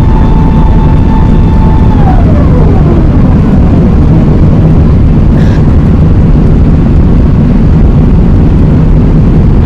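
Loud, steady roar of jet engines and airflow inside the passenger cabin of an Airbus A380. A thin whine holds steady, then slides down in pitch about two seconds in and fades.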